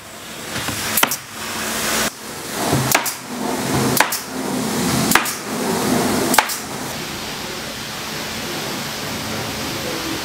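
Pneumatic nail gun shooting fasteners through asphalt shingles into a wooden roof: five sharp single shots a second or so apart over a steady hiss, then only the hiss from about seven seconds in.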